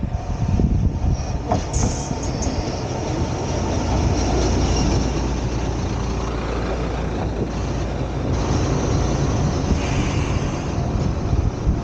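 Akita Nairiku Jukan Railway diesel railcar running, a steady low rumble, with brief high squeaks about two seconds in.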